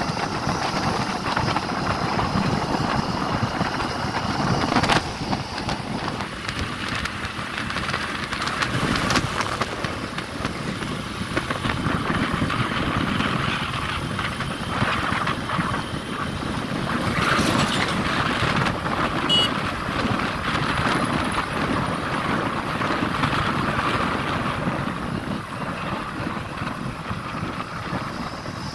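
Motorcycle running along a road at a steady pace, its engine mixed with wind and road noise.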